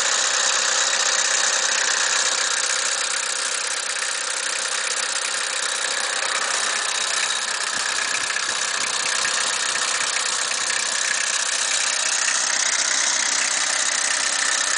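Kubota GT5 mini tractor engine running steadily at idle, heard up close in the open engine bay.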